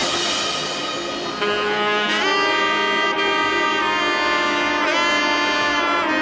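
Background music: a melody of long held notes, some sliding in pitch, over sustained chords.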